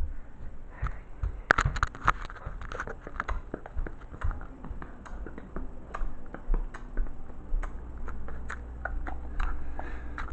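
Handling noise of a phone held close: irregular clicks, taps and rubbing on the microphone as it is moved about, with a low rumble underneath.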